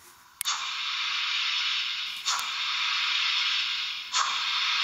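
Model BR 42 steam locomotive's sound decoder playing steam hiss through its small speaker, with thin, tinny sound and no deep notes. The hiss comes in long bursts, each starting sharply and fading a little, about every two seconds.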